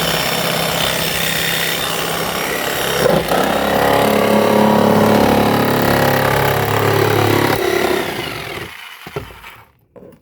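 Corded electric power saw running and cutting through the plastic body of a Power Wheels ride-on toy car; its sound changes about three seconds in as the blade bites. Near the end the trigger is released and the motor winds down.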